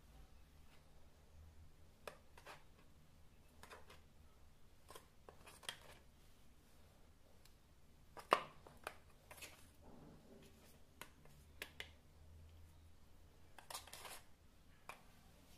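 Faint, scattered clicks and taps of a small steel spoon against a plastic spice box and its cups as ground spices are scooped out, with the sharpest tap about eight seconds in, over a low steady hum.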